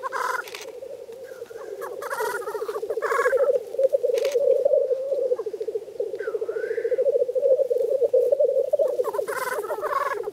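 Male black grouse at a lek giving their continuous bubbling, cooing song, many birds overlapping, with about four short harsh hissing calls breaking in over it.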